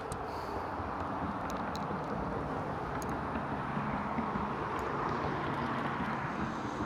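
Steady road traffic noise from passing vehicles, a continuous tyre-and-engine rush that swells a little midway and eases near the end, with a few faint small clicks.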